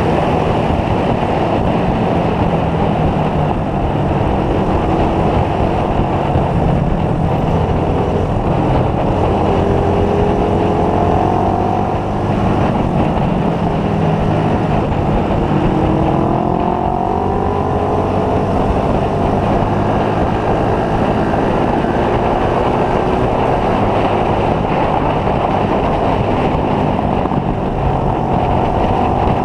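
Motorcycle engine running steadily while riding, over a dense rush of road and wind noise. The engine note rises in places as it picks up speed.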